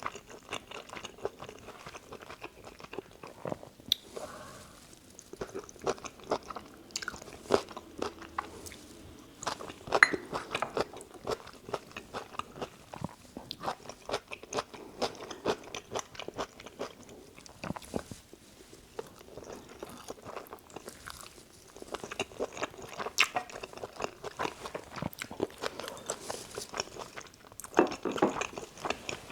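Close-miked eating sounds: chewing and biting of spicy stir-fried chicken and rice, wet clicks and smacks coming irregularly, several a second, a few louder ones along the way.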